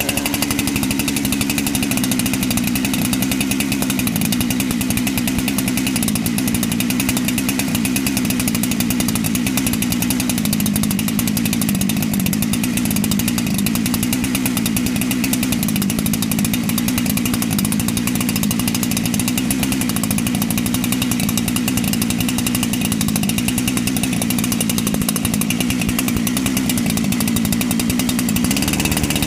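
Ported Hutzl/Farmertec 372XP clone chainsaw's two-stroke engine, with a dual-port muffler, running steadily and warming up after a cold start, its pitch wavering slightly.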